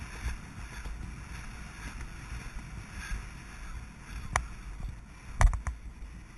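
Horse cantering over a dirt track, its hoofbeats thudding low under steady wind rushing over the rider's helmet microphone. A few sharp clicks come near the end, the loudest a little after five seconds in.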